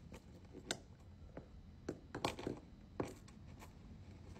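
A few faint, scattered clicks and light rustles, about one every half second to a second, over quiet room tone.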